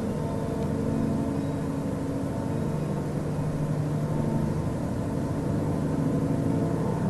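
A steady, low droning hum made of several held tones over a faint noise, of unknown origin: the 'strange sound' the uploader says went on for hours and takes to be something other than an airplane.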